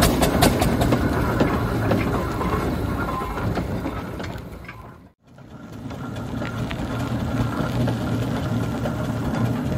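Fowler steam roller working, a steady low mechanical rumble with rapid clicking. It fades out to silence about five seconds in and fades back in with the same kind of rumble.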